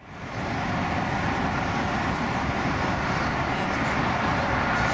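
Airbus A310-304(F) freighter's twin jet engines on final approach with gear down: a steady rushing drone that fades in over the first half second.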